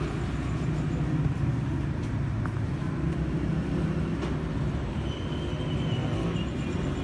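Steady low rumble of road traffic, with no clear rhythm or sudden events.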